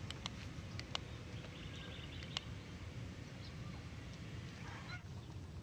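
Quiet outdoor ambience with a steady low rumble and a few faint, sharp short clicks, one a little louder about two and a half seconds in.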